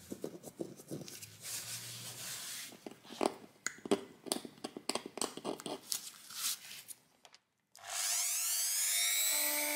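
Craft knife blade scraping charred laminate flooring in short, irregular strokes. Near the end a handheld rotary tool switches on, its whine rising in pitch as it spins up and then holding steady.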